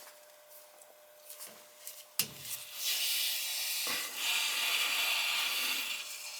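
A valve on a hot-water heating boiler being opened to drain the system down: a sharp click a couple of seconds in, then a steady hiss of flow through the open valve, broken once by a second click and fading near the end.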